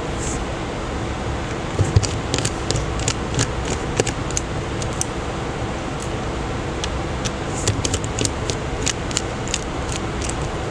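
Light clicks and taps of small repair tools on a smartphone's parts during disassembly, in two clusters of quick ticks, over a steady ventilation hum.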